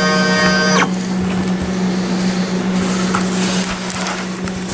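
CNC tangential-knife cutting machine: a steady multi-tone stepper-motor whine that stops abruptly about a second in, over a steady low hum. Lighter scraping and rustling follow.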